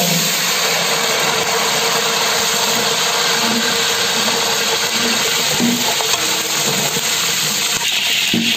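Green chillies dropped into hot oil in a large pot, setting off a loud, steady sizzle that starts suddenly and keeps going.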